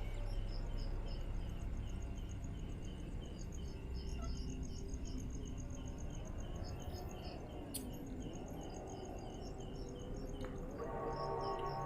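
Night insects, crickets, chirping in a steady rhythm of short pulses, about three a second, over a low outdoor hum. Near the end, sustained ambient music fades in.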